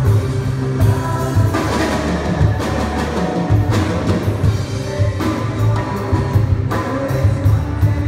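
Live band music: a drum kit and a low bass line under sustained chords.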